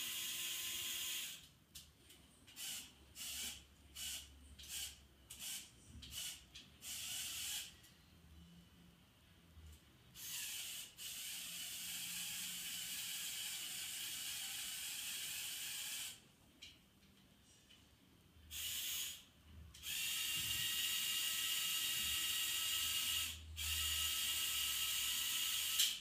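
Electric motors and gear trains of a motorised LEGO Technic crane model whirring as the boom is luffed down. First comes a string of short start-stop runs, then two longer steady runs of about six seconds each.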